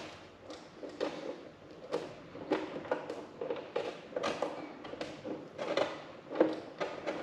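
Thin low-voltage thermostat wires being handled and twisted together by fingers: a run of irregular small scratches and clicks.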